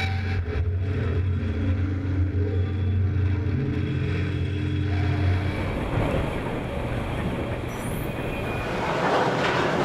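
Heavy mining machinery humming steadily, then a rumbling clatter of broken rock as a mining shovel's bucket dumps its load into a sizer's feed hopper. The clatter starts about halfway through and is loudest near the end.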